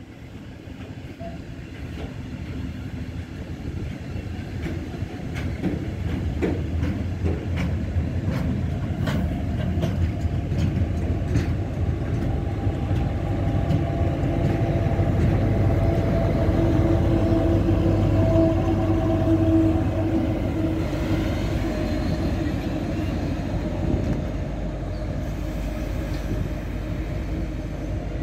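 Freight train approaching and rolling past, a low rumble building for the first twenty seconds or so and then easing off a little. Clicks of the wheels over rail joints come mostly in the first half, and a steady whine rides over the rumble in the middle.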